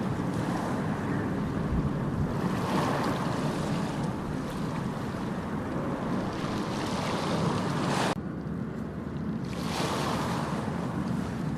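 Ocean waves washing onto a beach, swelling and falling back about every three to four seconds, with wind rumbling on the microphone. About eight seconds in the hiss drops abruptly, as at an edit.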